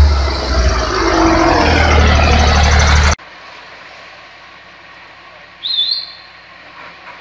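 A heavy cargo truck's diesel engine runs loud and close under load for about three seconds, then the sound cuts off abruptly into much quieter outdoor background. Near the end a bird gives one short, quick whistled call.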